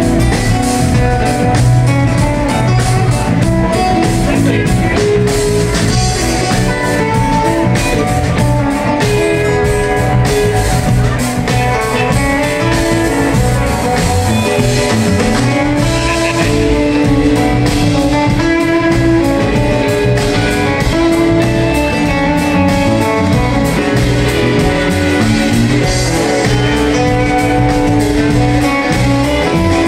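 A band playing music, led by plucked guitar lines over a steady bass and percussion.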